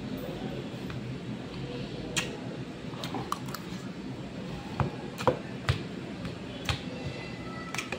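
Eating with a metal spoon: scattered short clicks and scrapes of the spoon against plastic food containers of rice, with chewing, over a steady low hum. The loudest click comes a little after five seconds in.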